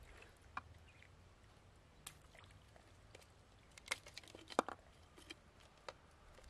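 Scattered faint clicks and scrapes of freshwater mussel shells being handled and knocked together, with a few sharper clicks about four seconds in and again just after.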